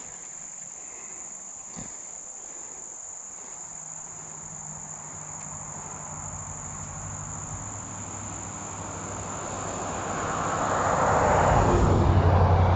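Insects trilling with a steady high tone. A motor vehicle grows steadily louder over the last few seconds, its noise and low engine hum swelling to the loudest point near the end.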